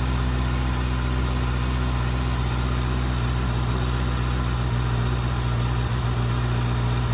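A 2024 Kawasaki Ninja ZX-6R's 636 cc inline-four engine idling steadily through its stock exhaust.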